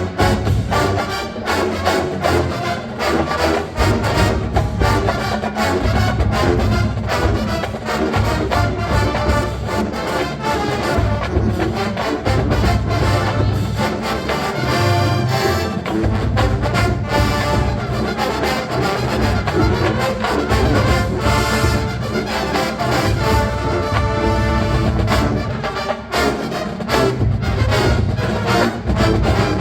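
College marching band playing a full-volume piece, with trombones and trumpets carrying the tune over a steady beat.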